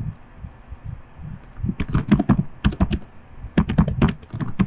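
Typing on a computer keyboard: quick runs of keystrokes, with a pause of about a second near the start.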